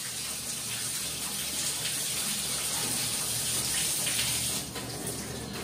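Shower water running and spraying in a small tiled bathroom as a steady hiss, which falls away near the end.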